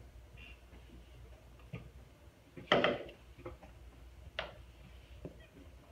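Scattered light taps and knocks of a pen writing on an interactive whiteboard, with one louder knock a little under three seconds in.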